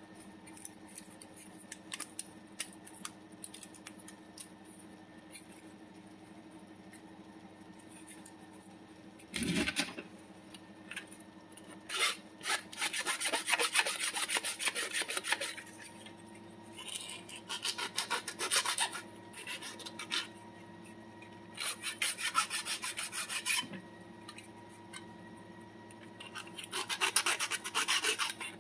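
Metal file rasping on the edge of a 3D-printed plastic part in four bursts of quick strokes. There is one dull knock about a third of the way in.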